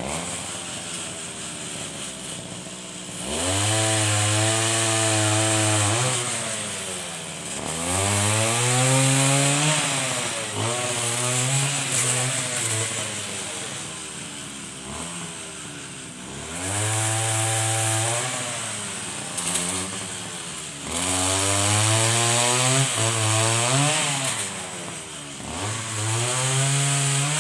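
Husqvarna brush cutter engine driving a chainsaw gearbox attachment, revving up to full throttle and dropping back toward idle six or seven times, each burst lasting two to three seconds, as the chain cuts into wood.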